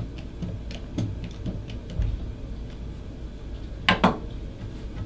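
Light clicks and taps of small hard parts being handled, with a sharper double click about four seconds in.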